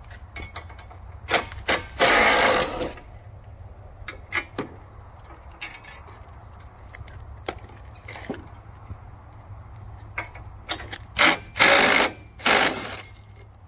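Hand work on a sawmill's shipping crate: scattered clicks and knocks, with a few loud short rasping bursts about two seconds in and again near the end, over a low steady hum.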